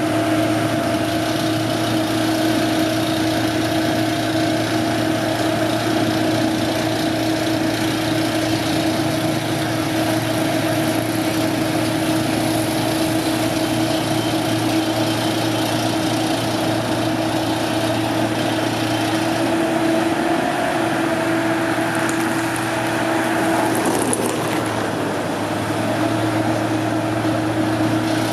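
Engine of construction machinery running steadily with a constant droning hum; about two-thirds of the way in the low part drops away for a few seconds and the pitch wavers slightly before it settles again.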